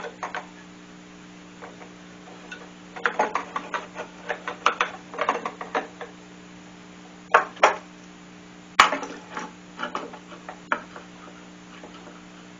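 Clamps being handled and fitted onto a wooden table glue-up: a quick run of clicks and clacks, two knocks, then a sharp knock about nine seconds in followed by lighter clicks.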